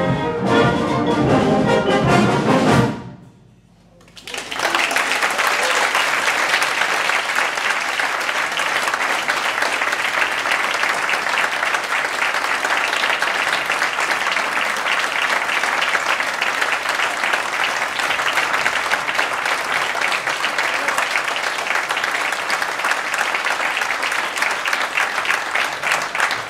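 A wind band plays its final chord, which cuts off about three seconds in; after a brief hush the audience breaks into steady, sustained applause.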